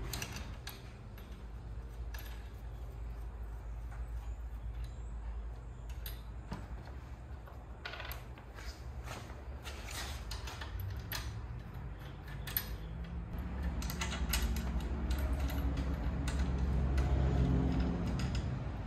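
Ratchet wrench clicking and metal clinking in short spells as bolts are run in and tightened, fastening a van passenger seat onto a swivel base, over a steady low hum.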